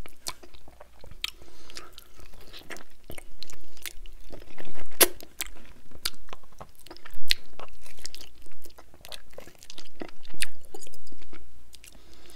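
Close-miked chewing and biting as a man gnaws meat off a sauced rib held in both hands, with many sharp, wet mouth clicks at an uneven pace.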